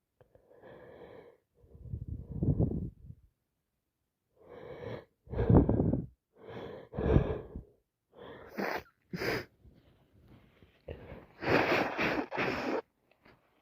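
A woman sneezing again and again, a run of about half a dozen sneezes with wheezy in-breaths between them, the last ones the sharpest, from a cold that has turned into sinusitis.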